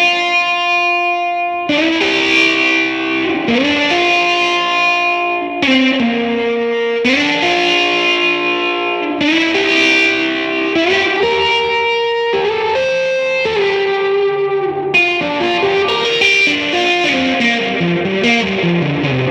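1957 Gibson ES-225TD electric guitar played through an Allston amp at full volume with the reverb at halfway. It gives a mildly overdriven tone, with sustained chords changing roughly every two seconds, then a descending run of notes near the end.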